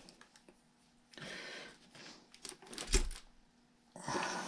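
Light scraping and small clicks of a metal pick working crash dirt out of a small RC plane's electric motor, with one louder knock about three seconds in.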